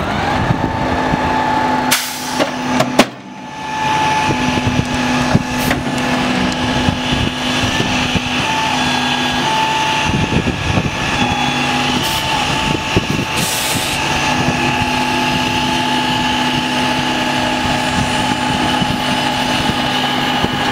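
Heavy wrecker's diesel engine revving up and then running at a steady raised speed with a whining tone, driving the boom and winches during the truck recovery. A few brief knocks sound over it.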